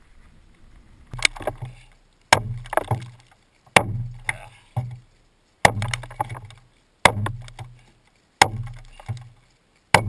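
Hand adze chopping into the hollowed redwood log of a dugout canoe: seven sharp strikes about one and a half seconds apart, starting about a second in. Each strike is followed by a brief low rumble from the log and a few smaller clicks.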